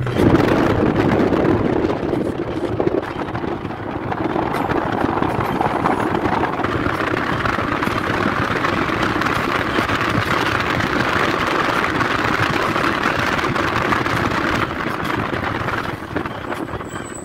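Steady rushing noise of a car moving along a road, easing off near the end.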